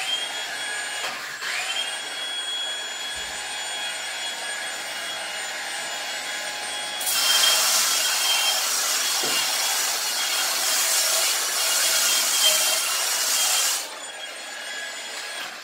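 Makita DSL801Z cordless drywall sander's motor spinning up and running with a steady whine. About seven seconds in, the 120-grit pad is pressed against the plastered wall and a loud, rough sanding hiss is added for about seven seconds. The pad then lifts off and the motor runs free again.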